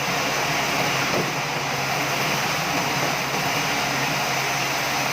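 Sawmill machinery running steadily: an even mechanical noise with a constant low hum, no cutting strokes or changes.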